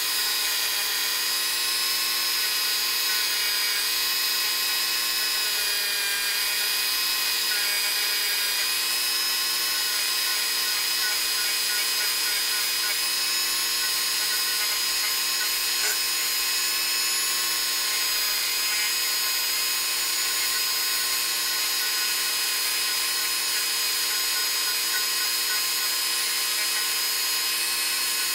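Handheld rotary tool spinning at a steady speed with a small polishing bit pressed against a steel sewing-machine presser bar, a continuous high-pitched whine. It is buffing tarnish off the bar's ground end.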